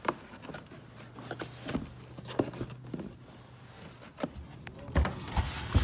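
Footsteps on a concrete floor, with scattered light knocks and handling noise, louder near the end. A faint low steady hum lies under the first half.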